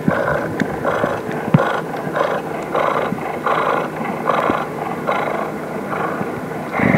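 Cheetah warning sound, the kind made to keep predators from coming close: a run of rough, breathy growling pulses, about two a second, that eases off near the end.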